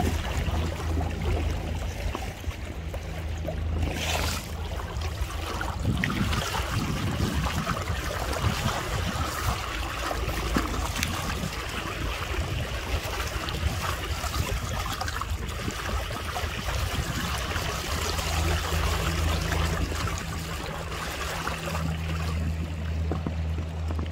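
Water rushing and splashing against an inflatable kayak moving through fast current. Under it is the steady low hum of the kayak's ePropulsion Vaquita electric motor, which fades out about five seconds in and returns a few seconds before the end.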